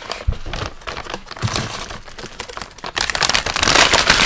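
Plastic kit parts bag crinkling as it is handled, with scattered clicks, getting much louder from about three seconds in.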